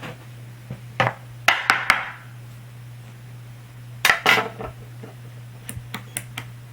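Handling clatter of an opened angle grinder's housing and parts: a few sharp clicks and knocks about a second in and again around four seconds, then a run of light quick clicks near the end.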